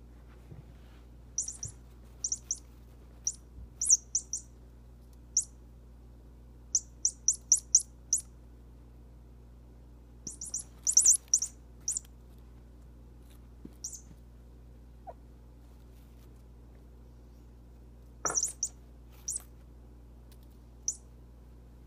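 Short, high-pitched bird-like chirps in quick clusters of two to five, coming every second or two with pauses between, over a faint steady low hum.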